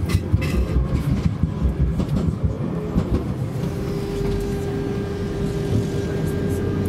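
Tram running, seen from inside: a continuous low rumble of wheels on rails with irregular knocks and rattles, and a steady motor whine that sets in about halfway through.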